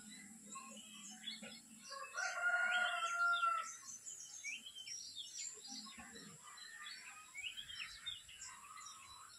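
A bird's long, loud call about two seconds in, lasting about a second and a half, with small birds chirping throughout.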